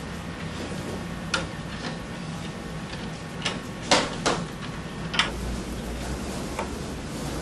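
About six sharp clicks and taps at irregular intervals, loudest near the middle, as the bamboo ribs and the wooden lamp form are handled, over a steady low hum.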